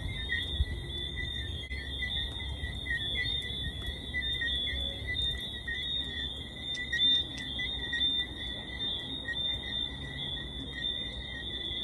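Night-time insect chorus: a steady, continuous high trill at two pitches, over a low steady rumble.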